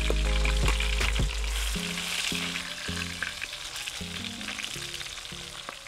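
Fish sizzling as it fries in oil in a metal wok, with occasional scrapes of a metal spatula. Background music with held notes plays over it, and everything fades out toward the end.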